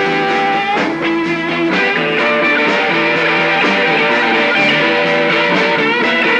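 Instrumental break in a rock song: the band plays on, with guitar to the fore and no singing.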